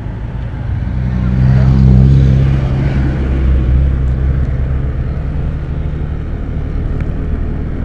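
Motorcycle engine running under way with road and wind noise, growing louder about two seconds in and then settling back to a steady level.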